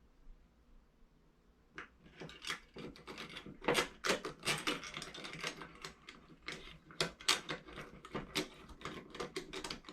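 Patio door lock hardware being handled and fitted back in place: quick runs of small clicks and rattles, starting about two seconds in.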